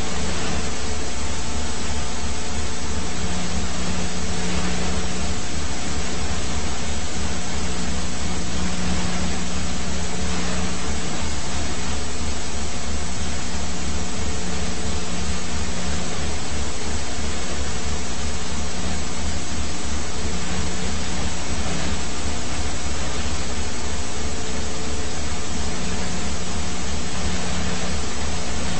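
Helicopter cabin noise: turbine engine and rotor running steadily, with a fast low rotor beat under an even hiss.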